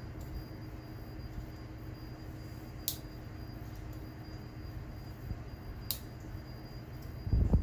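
Panasonic servo motor and drive on a test bench giving a steady low hum with a faint steady tone. A sharp high tick comes about every three seconds, and a low thump comes near the end.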